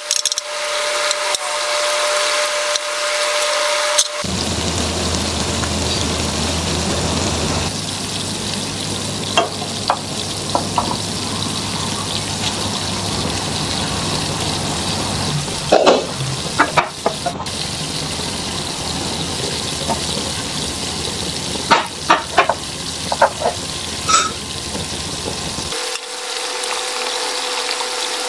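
Egg and napa cabbage omelette sizzling steadily as it fries in oil in a pan, with a few sharp clicks partway through.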